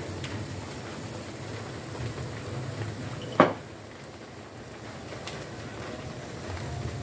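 Steak sizzling on a ridged grill pan over a portable gas stove, a steady hiss. About three and a half seconds in comes a single sharp knock, the loudest sound.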